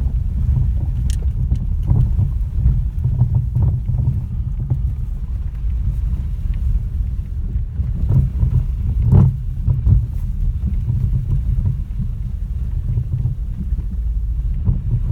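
Geely CK's worn steering and suspension knocking on a rough road: irregular short knocks over a steady low road rumble, the loudest about nine seconds in.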